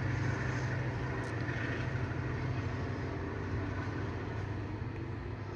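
Passenger train running slowly along the track: a steady low hum over a rumble, easing off slightly.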